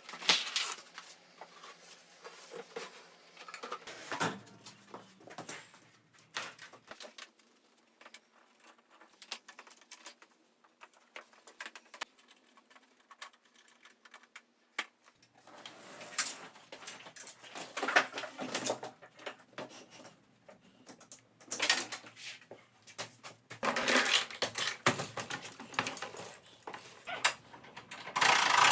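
Irregular workshop handling sounds: scattered knocks, taps and clatter of wood and tools being moved and set down, louder clusters about 16 to 19 seconds in and again near the end. A loud steady noise starts just before the end.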